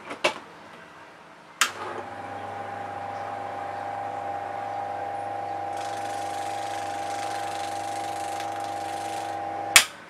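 A used washing machine motor is switched on with a sharp click. It spins up over about two seconds, then runs with a steady hum and whine. A loud click near the end switches it off and the sound stops.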